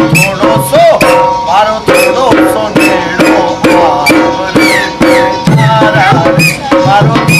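Dance music with hand drums keeping a quick, steady beat under a melody that slides up and down in pitch.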